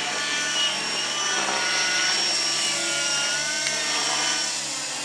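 Two radio-controlled model helicopters, an Align T-Rex 700 nitro and a Hirobo SDX, hovering low: a steady high whine of engines and rotors, its pitch wavering slightly up and down. It gets a little quieter near the end.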